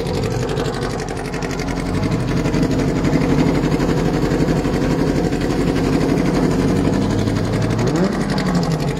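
Small two-cylinder racing car engine running at idle, with a quick rev that rises and falls about eight seconds in.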